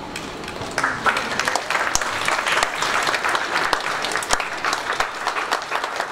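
Audience applauding, rising about a second in: a dense patter of many hands clapping.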